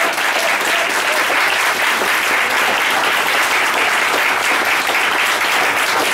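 A small audience applauding steadily, a dense, even clapping.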